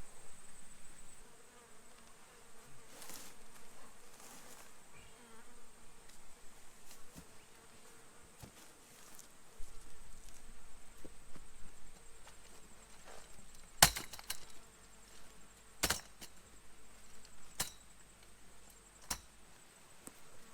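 Insects calling as a steady high-pitched drone, broken by a few sharp knocks or cracks, the loudest about two-thirds of the way through.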